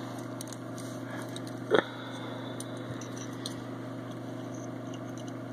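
Steady low hum with faint clicks as a small diecast toy car is handled in the fingers, and one brief louder sound just under two seconds in.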